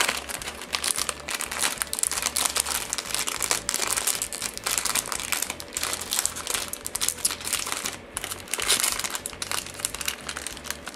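Plastic blind-bag wrapper crinkling and crackling continuously as hands tear it open and work the opening wider.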